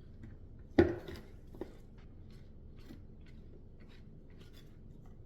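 A spatula scraping out the sides of a soap-mixing bucket: a sharp knock about a second in and a smaller one shortly after, then light scraping and clicking.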